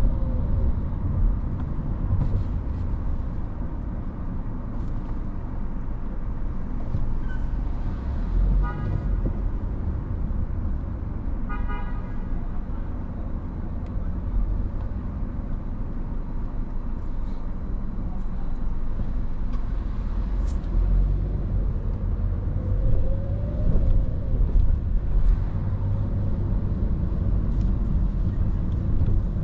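Car driving through city traffic: a steady low road and engine rumble, with two short car-horn toots about three seconds apart a third of the way in.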